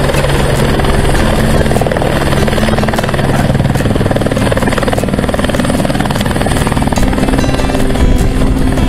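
Light helicopter landing: its rotor and engine run loud and steady as it comes down the last few metres and settles onto its skids near the end.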